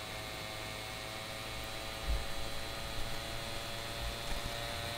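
Steady hum with a faint high whine, broken by low rumbles of wind buffeting the microphone about two, three and four seconds in.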